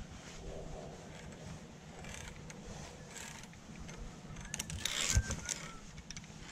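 Metal zipline gear (carabiners and trolley) clinking and scraping as it is handled, building to a clatter with a thump about five seconds in.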